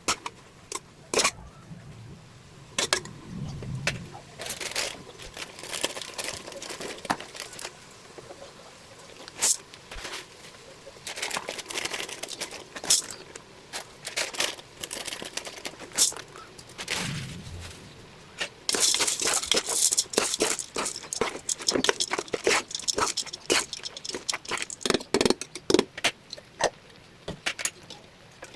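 Cooking prep sounds: irregular clicks, knocks and crinkling of utensils and packaging, getting busier about two-thirds of the way through.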